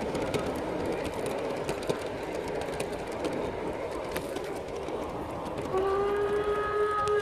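Large-scale garden-railway freight wagons rolling along the track, a steady rumble with light clicks over the rail joints. About six seconds in, a steady horn-like tone starts and holds.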